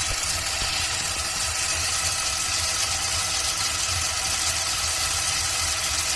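Small DC gear motors of a Bluetooth-controlled RC car, driven through an L298N motor driver, running steadily with a whine over a low hum; the car has been set to turn right.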